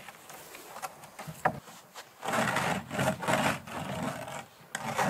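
Cloth rustling and rubbing as a red woven sash is rolled up by hand, with a sharp click about a second and a half in. The rustling grows louder from about two seconds in.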